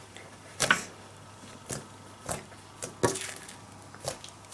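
Fingertips poking and patting homemade glitter-glue slime on a table. They make about six short, sticky smacks and clicks at uneven intervals.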